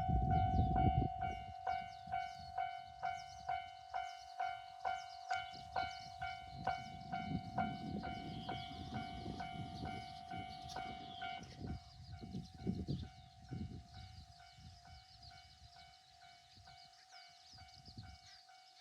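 Japanese level-crossing alarm ringing its 'kan-kan' bell about twice a second while a train rumbles past. The strikes stop about eleven seconds in, leaving a fainter steady tone as the sound fades.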